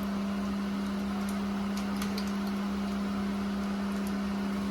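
A steady low electrical or mechanical hum, holding one pitch, with a few faint light clicks of small metal parts being handled.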